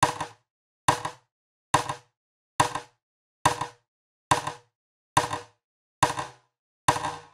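A short percussive knock repeated evenly, about once every 0.85 s, nine times, played through the Hexaline chorus/triple-delay plugin. The smeared tail after each hit grows longer near the end.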